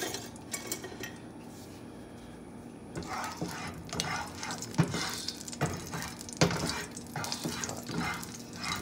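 Frying pan being handled on the stovetop: quiet at first, then irregular knocks and clatter from about three seconds in, with two sharper knocks near the middle.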